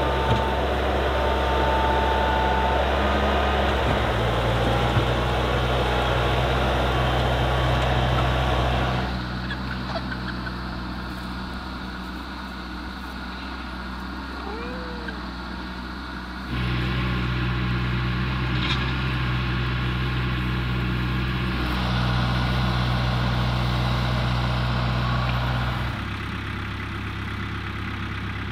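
Compact farm tractor's engine running steadily at constant speed, its level dropping and rising in steps a few times.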